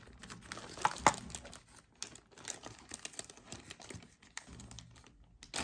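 Small plastic jewelry bags crinkling and rustling as jewelry is handled and sorted on a table, with scattered light clicks and two sharper clicks about a second in.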